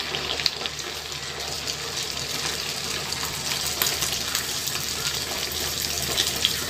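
Neypathal (rice-flour dough rounds) deep-frying in hot oil in a steel kadai: a steady sizzle and bubbling with fine crackles as the dough puffs up.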